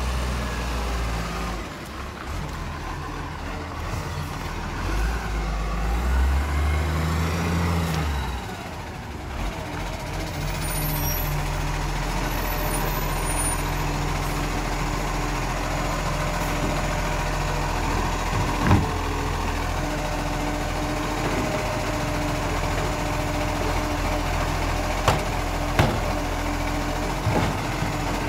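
Acco side-loader garbage truck's diesel engine, shifting as the truck pulls up, then idling steadily while its automated side arm swings out to a bin. A few sharp clanks come in the second half.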